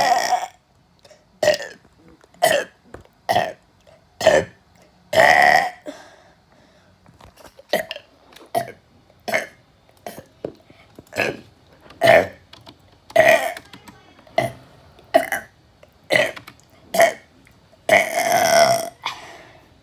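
A person burping on purpose, over and over: short burps about a second apart, with longer drawn-out ones about five seconds in and near the end.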